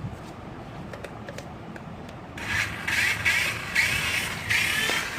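Rubbing, scraping noise in four or five bursts, starting about two and a half seconds in, after a few faint clicks.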